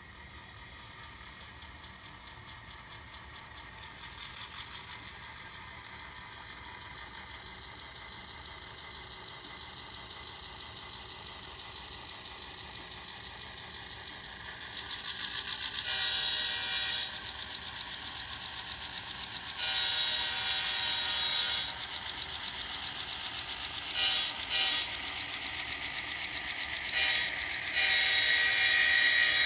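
Atlas HO-scale GP38-2 model diesel locomotive's ESU sound decoder playing a diesel engine running through its small onboard speaker as it rolls past, growing louder a few seconds in. About halfway through the decoder's horn sounds: two long blasts, two quick short ones, a short one, then a long blast that runs on.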